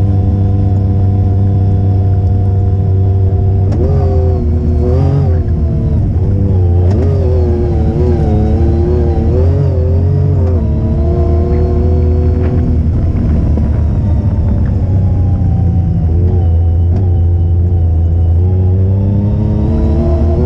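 Off-road vehicle's engine running as it drives along a dirt trail. The engine holds a steady speed, then rises and falls in pitch with the throttle for several seconds, and picks up again near the end.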